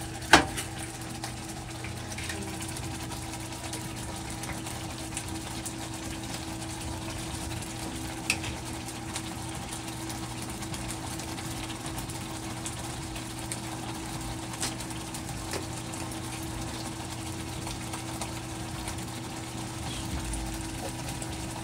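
Steady low hum of a running kitchen appliance, with a few isolated taps of a knife on a cutting board.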